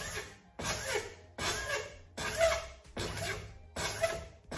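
Hand file cross-filing the edge of an acrylic sheet held in an engineer's vise: a steady rhythm of rasping push strokes, a little over one a second, chamfering the edge to 45 degrees.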